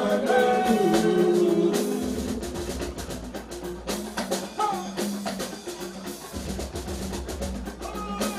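Live band music with a drum kit: a sung line trails off in the first two seconds, then the band plays on with steady held notes and regular snare and bass-drum beats.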